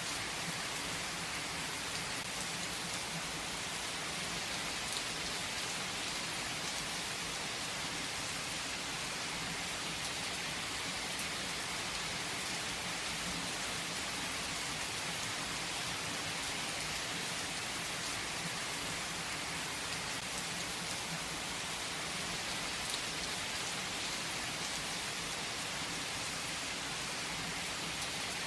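Heavy rain falling steadily on a tree: a dense, even hiss with occasional sharper drop ticks.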